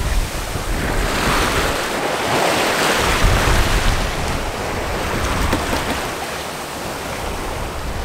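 Open-ocean waves rushing and breaking around a sailing yacht under way, with wind gusting across the microphone; the rush swells and eases rather than holding steady.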